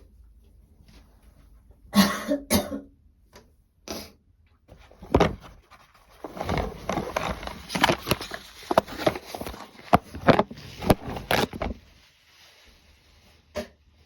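A woman coughing with a cold coming on and a sore throat, still a light cough: a few single coughs, then a long coughing fit of many quick coughs from about six seconds in to about twelve.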